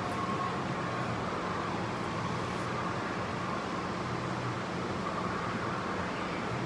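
Steady ventilation hum and hiss of a gym's air handling, even and unchanging, with nothing else standing out.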